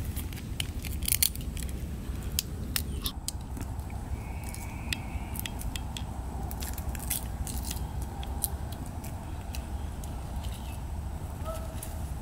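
Eggshells being cracked and peeled by hand: irregular sharp clicks and crackles, thickest in the first few seconds.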